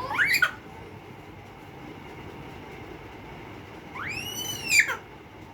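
A baby's high-pitched squeals: a short rising one at the start and a longer arched one about four seconds in, over the steady low whir of a ceiling fan.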